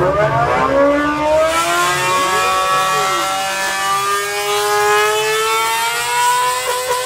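A sustained, siren-like tone of several pitches rising slowly and steadily; the rumble beneath it stops about a second in.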